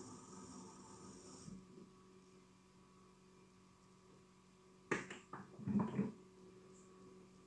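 Faint steady room hum with a hiss that stops after about a second and a half. About five seconds in comes a sharp click, then a second later a brief cluster of soft knocks and rustles.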